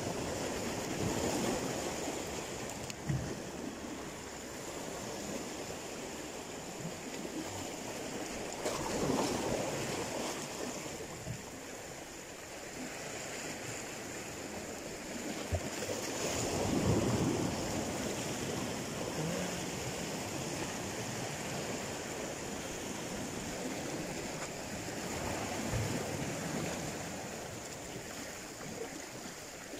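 Sea waves washing in against rocks at the water's edge, a steady wash that swells into a louder surge about every eight seconds.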